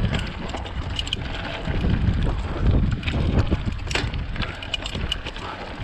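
Wind buffeting an action camera's microphone over the rumble of mountain bike tyres on a dirt trail, with scattered rattling clicks from the bike, the loudest about four seconds in.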